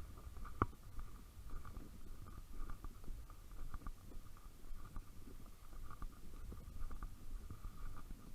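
Strong wind buffeting the microphone: an uneven low rumble, with a faint steady high hum over it and one sharp click about half a second in.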